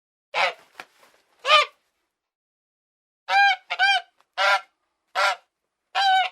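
Geese honking: about seven short, separate honks, two near the start, then a quicker run of about five from about three seconds in.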